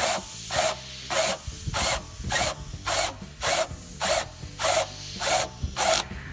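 Rhythmic back-and-forth rasping of a hand tool scraping a surface, a little under two strokes per second, each stroke a short scratchy rasp.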